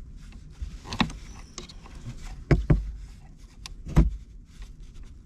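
Small handling clicks and knocks from a tool working on a car wire's insulation, cutting it open further: a click about a second in, two close together at about two and a half seconds, and a louder one at four seconds, with fainter ticks between.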